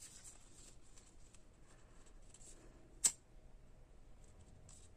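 Faint handling of grosgrain ribbon, then about three seconds in a single sharp click as a disposable BIC lighter is struck to light its flame.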